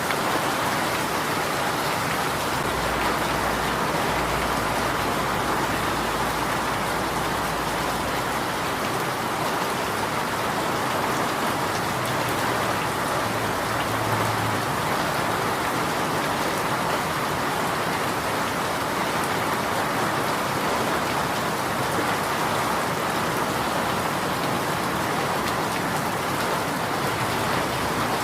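Steady rain falling, an even hiss of drops, with a faint low rumble underneath for a few seconds near the start.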